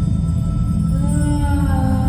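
Background soundtrack music: a steady low drone with long held tones, new higher notes gliding in about a second in.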